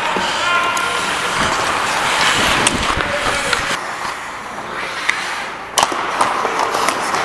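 Hockey skate blades scraping and gliding on rink ice, with scattered small clicks and a sharp knock about six seconds in.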